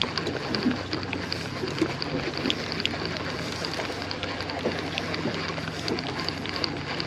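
Boat's outboard motor idling steadily, with water sloshing and scattered light clicks.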